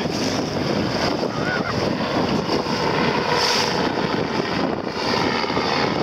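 Wind buffeting the microphone over water rushing and splashing along the hull of a boat under way, a steady, even noise.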